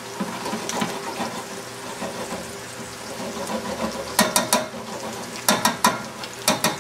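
Risotto sizzling and bubbling in a stainless steel sauté pan as it is stirred, hot liquid just added. From about four seconds in come three quick groups of sharp metallic taps, the utensil knocked against the pan.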